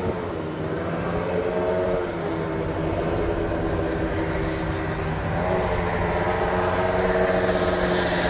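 Racing lawn mower engine running under power, its pitch dipping about two seconds in and rising again from about five and a half seconds.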